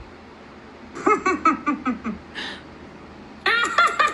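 A voice rattling off fast strings of short repeated syllables, a word that won't end ('nakata-nakata…'), in two quick bursts: one about a second in and one near the end, with a short breathy sound between.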